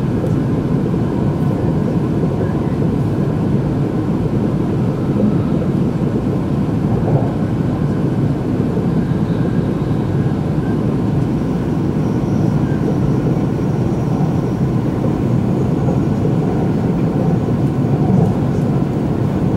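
Shinkansen train running along the line, heard inside the passenger cabin: a steady low rumble of the wheels on the rails and running gear, unbroken throughout.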